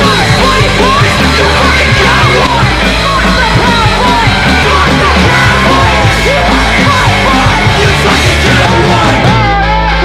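Loud punk-style rock music with voices yelling over it; near the end the music changes to steadier held bass notes.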